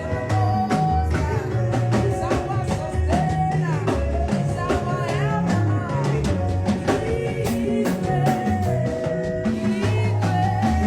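A band playing live with a singer: drum kit and a stepping bass line under a sung melody.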